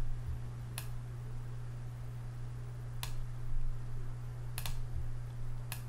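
Four isolated sharp clicks from a computer's keyboard and mouse, a second or two apart, over a steady low hum.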